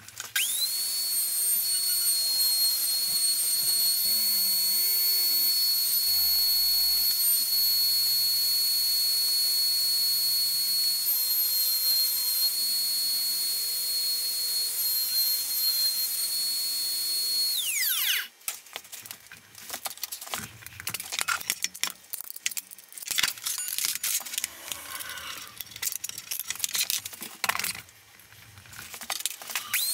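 Router in a router table starting up, running with a steady high-pitched whine, then switched off about 17 seconds in and winding down with a falling pitch. After that come irregular bursts of noise and clatter, and the router whine starts up again right at the end.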